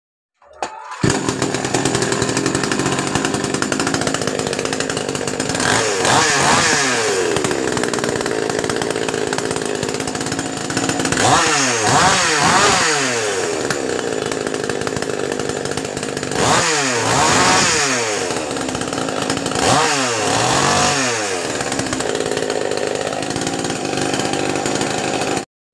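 A 58cc two-stroke chainsaw engine running loudly after a new cylinder and piston have been fitted. It is revved up and back down several times, and it stops abruptly near the end.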